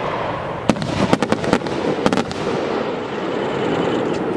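Aerial fireworks: a quick run of sharp crackling pops from about a second in to just past two seconds, as the burst shell's stars break up, over a steady rushing noise.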